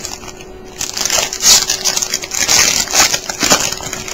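Foil trading-card pack wrapper being torn open and crinkled by hand: loud, irregular crackling from about a second in until just before the end.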